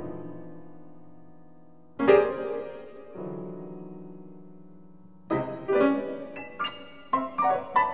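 Solo piano playing modernist, atonal music. A held chord dies away, a loud chord struck about two seconds in rings and fades into a quieter low chord, then from about five seconds a scattered flurry of sharp strikes jumps between loud and soft.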